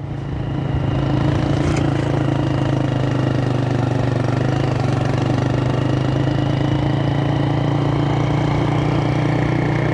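Motorcycle engine running at a steady speed, heard from on the moving bike, its note steady over continuous riding noise; it picks up a little in the first second.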